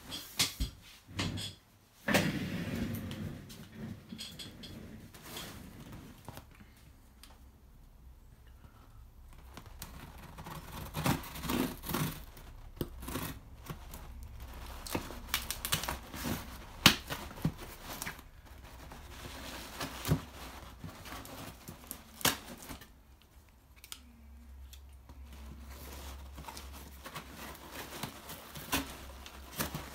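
A knife slitting the packing tape on a cardboard box, with scraping and tearing of tape and irregular knocks and rustles as the cardboard flaps are handled and pulled open.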